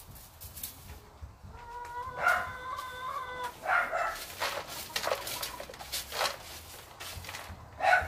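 Chickens clucking, with one long, steady-pitched call lasting about two seconds, starting about a second and a half in. Under them, the short scratchy strokes of a straw broom sweeping the dirt floor of the run.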